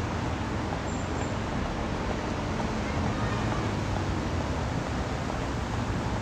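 Steady low rumble of road-vehicle or traffic noise, even throughout with no distinct events.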